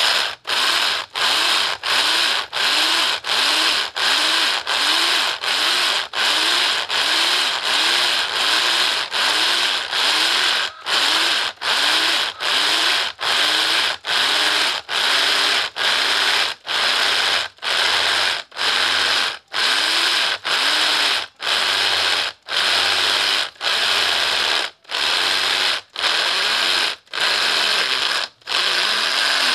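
Corded electric drill with a 65 mm concrete core bit cutting into a concrete block, the bit grinding through the concrete. The drill is run in short bursts of about a second with brief stops between them, each burst speeding up from the start, and the bursts get a little longer near the end.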